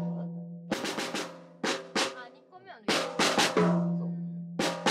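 Acoustic drum kit played with sticks: four short flurries of quick strokes about a second apart, each leaving a drum ringing on a low steady tone that fades.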